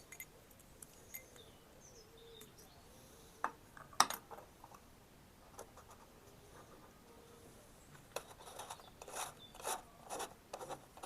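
Small plastic lamp parts being handled and fitted back together: scattered light clicks and rubbing, a sharp click about four seconds in, and a run of scraping and clicking near the end.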